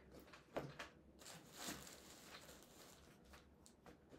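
Faint rustling and soft handling noises of cotton quilting fabric and paper being picked up and sorted by hand.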